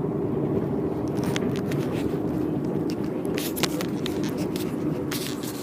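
Road and engine noise inside a moving car's cabin, a steady low rumble with a few light clicks.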